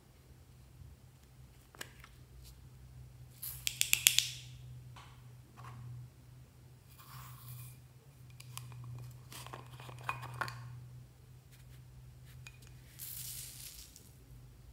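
Small plastic slime tubs and a glitter jar being handled: scattered clicks, taps and short rustles of plastic, loudest in a quick run of clicks about four seconds in. A faint steady low hum runs underneath.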